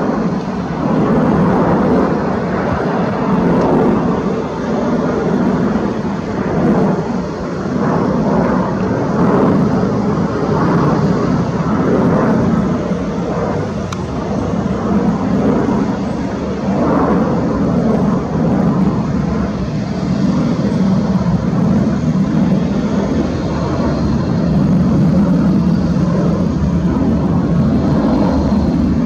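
Twin turbofan engines of an Airbus A330 jetliner climbing out after takeoff, a continuous loud jet rumble that wavers in strength.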